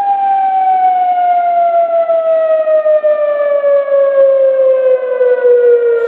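Outdoor civil-defence siren sounding a tornado warning: one long tone that falls slowly in pitch.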